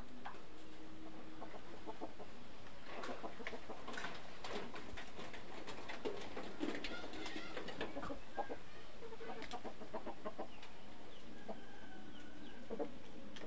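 Chickens clucking: a string of short, quick calls, busiest from about three to eleven seconds in, then thinning out.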